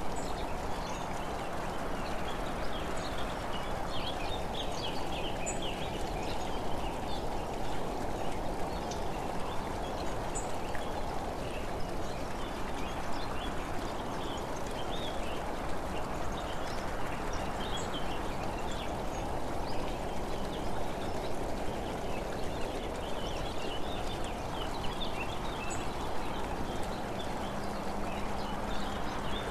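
Steady rushing of wind and road noise from travelling along a country road, with birds chirping and singing throughout in the background.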